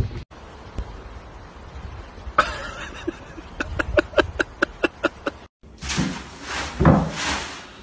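A run of short, sharp animal chirps or yips, about two or three a second. Then a cat lands in a tub of litter pellets and scrabbles through them, giving two loud rustling scrapes.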